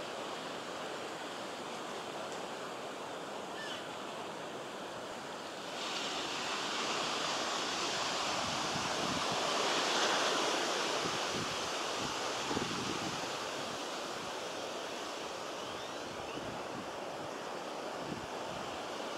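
Steady outdoor rushing noise, with no voices or calls standing out. It steps up suddenly about six seconds in, is loudest around ten seconds and then slowly eases.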